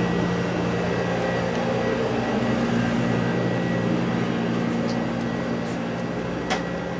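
Steady low machine hum of running room equipment, with a couple of faint clicks near the end.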